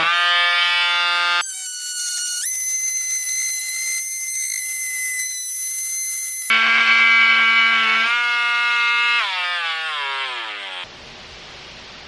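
Parkside PAMFW 12 D4 12-volt cordless oscillating multi-tool running with an HCS plunge saw blade, cutting into a laminate board: a loud, buzzing whine that shifts pitch in steps, then falls away about nine seconds in as the tool winds down. Faint hiss follows near the end.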